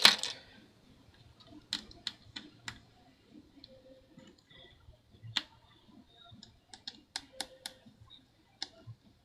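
Light sharp clicks and ticks of a small star-bit (Torx) screwdriver and tiny screws being worked out of a MacBook Pro's internals, coming in scattered groups of a few at a time.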